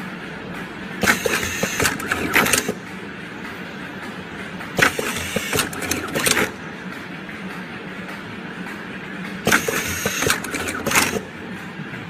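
Wire-harness tape wrapping machine running three wrapping cycles, about four seconds apart: each is a burst of mechanical clattering and clicks lasting one to two seconds, over a steady hum.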